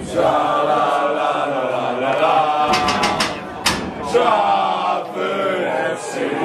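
Football crowd chanting together, many men's voices singing a terrace chant in unison, with a few sharp hits about three seconds in.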